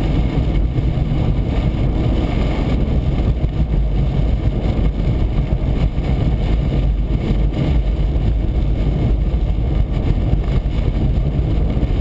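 Steady low rumble of a car driving along an icy highway, tyre and engine noise heard from inside the cabin.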